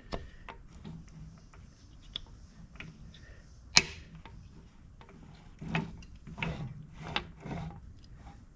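Light metal clicks and taps from a DeSoto Hemi valve lifter being worked in its bore, stuck and barely coming up. One sharp click comes about four seconds in, and a run of knocks follows in the second half.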